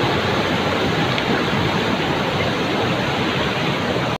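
Floodwater of the Thamirabarani River rushing over rapids: a loud, steady rush of white water that cuts off abruptly at the end.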